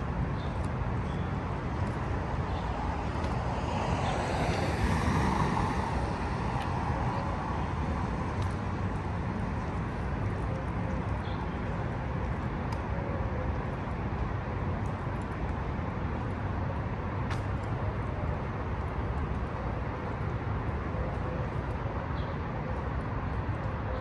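City street traffic noise, with one vehicle passing close about four to six seconds in.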